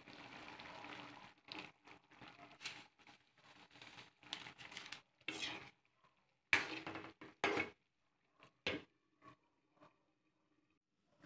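Metal ladle stirring and scraping through a pot of stew, with clinks against the pot in short, irregular bursts broken by abrupt gaps of silence.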